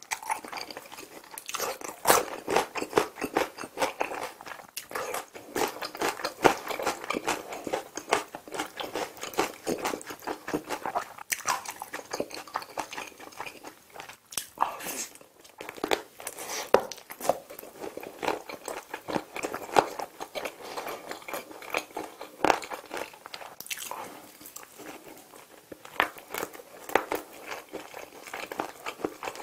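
Close-miked eating sounds: biting into and chewing sauce-glazed fried chicken off the bone, with wet, crunchy bites and chewing clicks, easing off briefly about halfway through.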